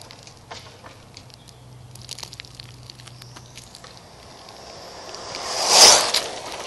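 Electric 1/10-scale RC truck with a 13-turn four-pole motor speeding past close by on a gravelly road: a motor whine and tyre hiss that swells sharply and falls away quickly near the end, after a stretch of scattered small ticks.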